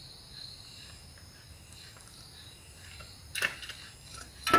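Clear plastic blister pack of a phone battery handled and knocked against a tabletop: a sharp click about three and a half seconds in and a louder one at the very end, over a faint steady high whine in the background.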